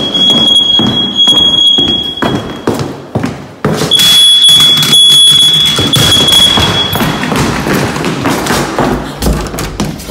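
Hurried footsteps thudding across a wooden floor, with knocks from the phone being jostled. A high, steady electronic tone sounds for the first two seconds or so, stops, and sounds again from about four to seven seconds in.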